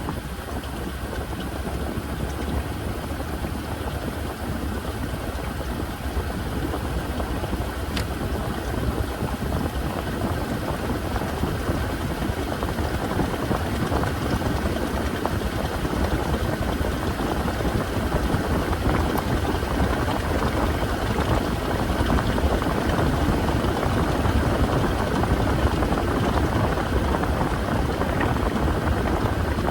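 Washing machine running, a steady churning mechanical noise that grows slowly louder.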